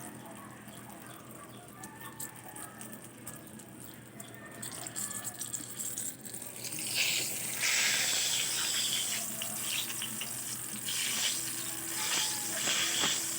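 Eggplant frying in hot oil, sizzling and crackling. It gets much louder about seven seconds in.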